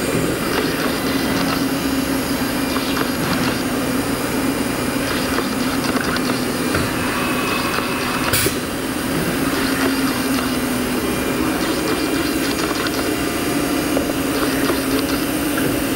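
Steady machine-shop noise from running machinery: a constant hum over an even rushing noise, with one sharp click about halfway through.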